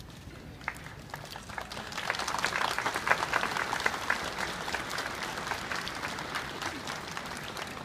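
Crowd applauding: a few scattered claps at first, swelling into full applause about two seconds in, then slowly thinning out.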